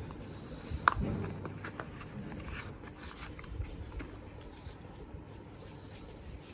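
Handling noise from a wireless mic kit's plastic packaging tray: soft scrapes and small clicks as the parts are worked in it, with one sharp click about a second in.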